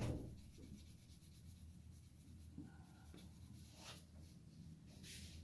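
Faint rubbing and scratching of hands on hair and scalp during a head massage, over a low steady hum.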